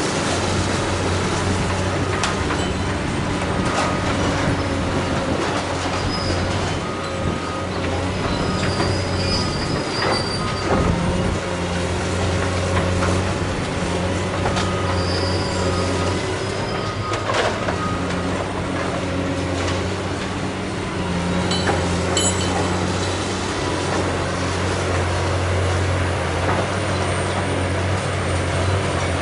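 Diesel excavator running steadily while demolishing a brick building, with high metallic squeals coming and going and scattered sharp knocks and cracks from breaking debris.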